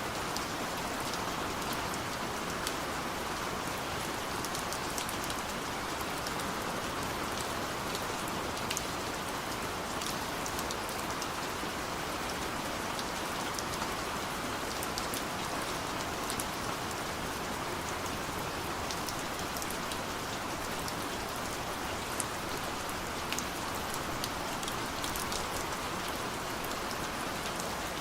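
Steady rain falling, an even hiss with many small, sharp drop ticks scattered through it.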